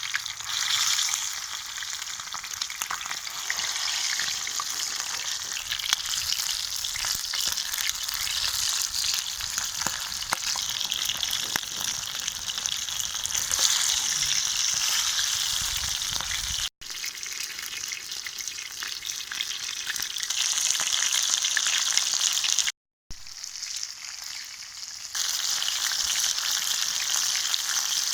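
Masala-coated chicken leg pieces frying in oil on a hot dosa griddle: a steady crackling sizzle that cuts out briefly twice.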